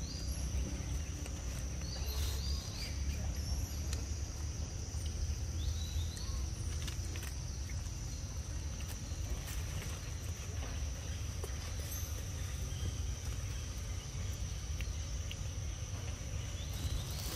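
Outdoor forest ambience: a steady high-pitched insect drone throughout, over a constant low rumble, with a few short chirps and small clicks now and then.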